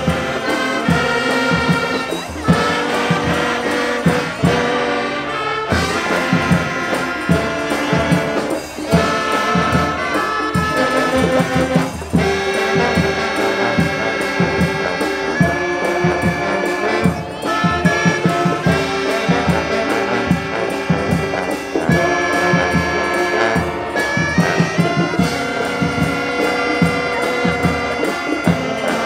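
Music with brass instruments, trumpet and trombone, over a steady beat.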